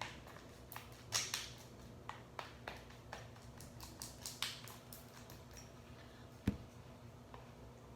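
Slime being stirred in a small pot: irregular sticky clicks and taps, with a couple of louder scraping swishes and one dull thump near the end.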